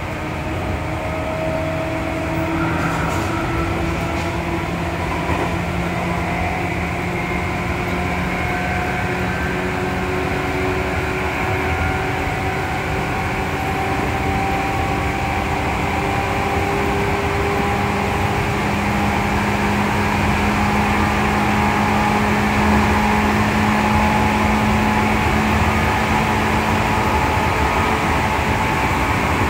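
On-board running sound of a Seibu 2000 series field-chopper-controlled electric train: traction motors and gears whining with several tones that slowly rise in pitch as the train gathers speed, over a steady rumble of wheels on rail, heard from inside a motor car.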